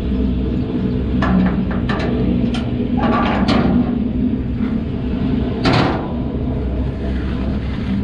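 Log truck ratchet tie-down straps being released and pulled loose: a run of sharp metal clicks and clacks between about one and four seconds in, and a louder clack near six seconds. Underneath is the steady hum of an idling engine.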